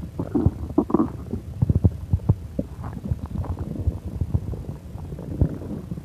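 Human stomach and bowels gurgling, a dense irregular run of short bubbly pops and rumbles: a bubbly tummy digesting a quickly eaten pancake meal.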